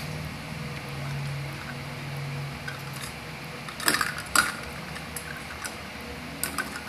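Sharp clinks and rattles in two short clusters, about four seconds in and again near the end: a cat playing with a toy ball inside a wire pet cage, knocking against the metal.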